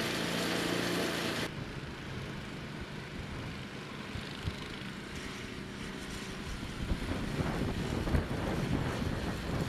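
An engine runs with a steady hum and cuts off suddenly about a second and a half in, followed by wind buffeting the microphone, gustier near the end.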